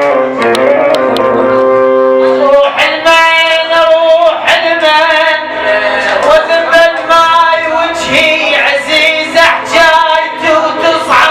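Live Arabic music: a held melodic line for the first couple of seconds, then from about three seconds in a louder, ornamented melody over quick percussion strikes.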